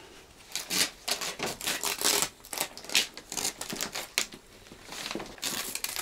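Taped paper stencil being peeled off a painted plywood sheet: a quick, uneven run of short ripping and crackling sounds.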